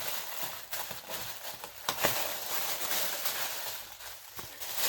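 Tissue paper rustling and crinkling as it is handled, with scattered sharp crackles, the loudest about two seconds in.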